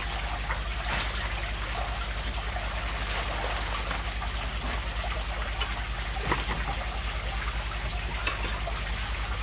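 Steady trickle of water from a running aquarium filter over a low hum, with a few faint crinkles and knocks as plastic packaging is handled.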